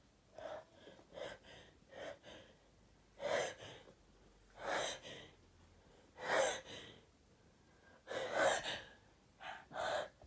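A person's sharp, breathy gasps in a sneezing fit, coming one after another about every one to two seconds, the first few faint and the later ones louder.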